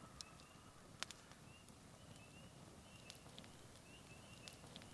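Near silence in the outdoors: faint, high, short rising chirps repeating every half second or so, with a few faint sharp clicks.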